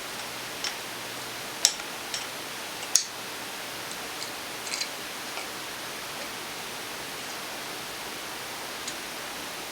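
A few scattered, irregular clicks from a hand ratchet with an Allen-bit socket turning out a loosened engine bolt, the sharpest about one and a half and three seconds in, over a steady hiss.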